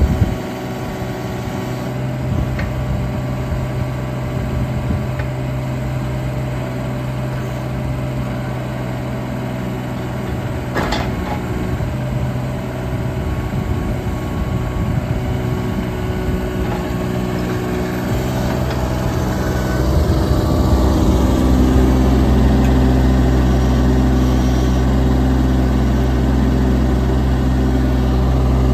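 2020 JCB 16C-1 mini excavator's diesel engine running steadily while the arm and bucket are worked. There is one sharp knock near the middle. About two-thirds of the way through, the engine gets louder and deeper.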